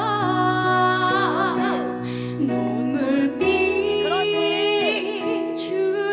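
A woman singing a slow trot ballad with vibrato into a microphone, over sustained electric keyboard chords.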